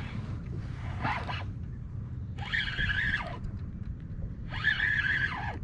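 A fishing reel cranked in three short bursts of about a second each, its whir rising in pitch as each burst starts and dropping as it stops. The angler is reeling a hooked fish up from the bottom.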